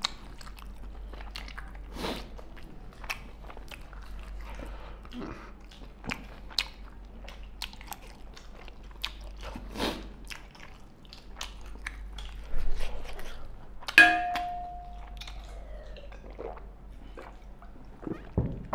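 Close-up eating sounds: chewing and biting, with many small wet clicks. A sharp clink with a brief ringing tone about three-quarters of the way through.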